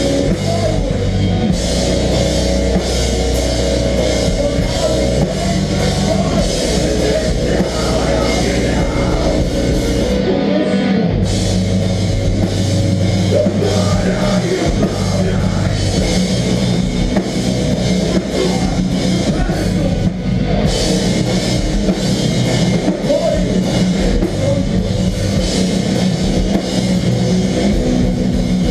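Melodic hardcore band playing live at full volume: distorted guitars, bass and a busy drum kit with constant cymbals. About ten seconds in, the cymbals and guitars cut out for roughly a second while the low bass carries on, then the full band comes back in.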